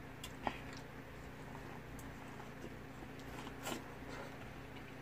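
Eating sounds of corn on the cob being bitten and chewed: a few short clicks and crunches, a sharp one about half a second in and a louder one just before the four-second mark, over a steady low hum.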